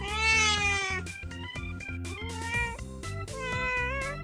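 Domestic cat meowing three times. The first meow is the loudest and falls in pitch; the second, about two seconds in, rises and then falls; the third comes near the end.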